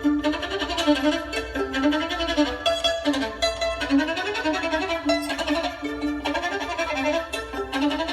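A bowed fiddle playing a melody, its notes stepping quickly up and down with some slides between them.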